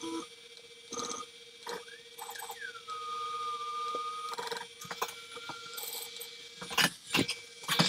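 FoxAlien Masuter Pro CNC router's stepper motors whining as the head is jogged. There is one longer move about two and a half seconds in, its pitch falling and then holding for nearly two seconds, and a short move about five seconds in. A few sharp clicks come near the end.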